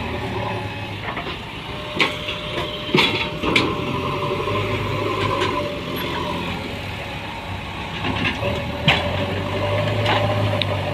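A JCB backhoe loader's diesel engine runs steadily, with a few sharp metallic knocks and clanks: about two seconds in, a cluster around three seconds, and one near nine seconds.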